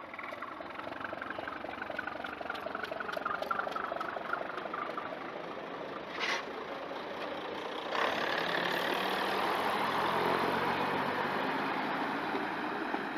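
British Rail Class 121 diesel railcar with its underfloor diesel engine running and a rhythmic beat as it moves along the platform. About eight seconds in the engine note suddenly gets louder and fuller as the railcar pulls away under power.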